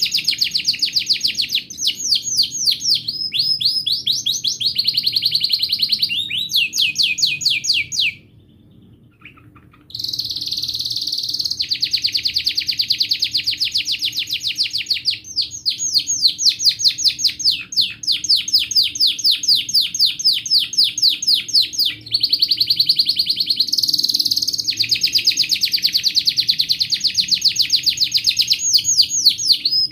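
Domestic canary singing a long song of fast trills, each phrase a rapid run of repeated notes that shifts to a new pattern every second or two. The song breaks off for about two seconds some eight seconds in, then runs on.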